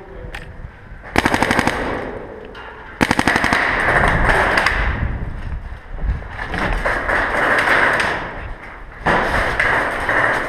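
Paintball markers firing fast strings of shots: a short string about a second in, a longer one starting at about three seconds, and another near the end.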